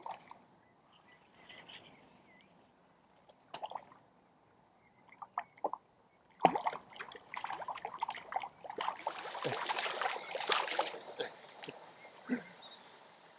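A small koi carp splashing and thrashing at the surface of the water as it is played in to the bank on a fishing line. A few scattered splashes at first, then a longer spell of heavier splashing past the middle.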